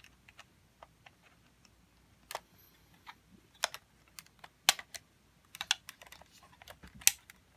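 Irregular sharp plastic clicks and taps as a screwdriver prys at the black tab and knob of a washing machine timer, with the loudest click about seven seconds in.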